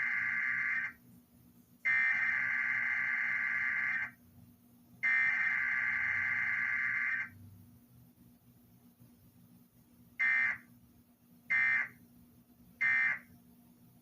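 Emergency Alert System Required Weekly Test data tones: the end of one SAME header burst and two more, each about two seconds long with a second's gap between, then, after about three seconds of quiet, three short end-of-message bursts. No attention tone or spoken message comes between them.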